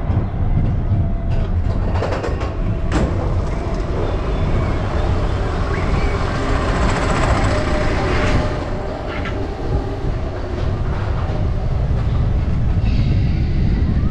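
Expedition Everest roller coaster train running along its steel track: a steady loud rumble and rattle of the wheels on the rails, with a few sharp clacks about two to three seconds in.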